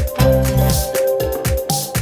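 Background electronic dance music with a steady beat, deep bass notes that slide down in pitch, and a bright high tone held over it.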